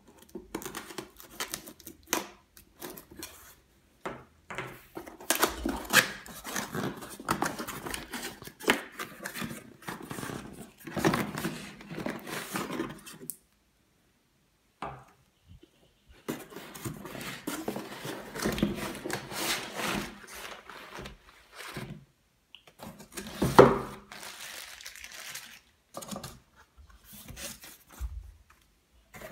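Cardboard box and its packaging being handled while unpacking: a seal peeled and torn, flaps and plastic wrapping rustling and crinkling in irregular spells with short pauses. One sharp knock stands out late on, the loudest sound.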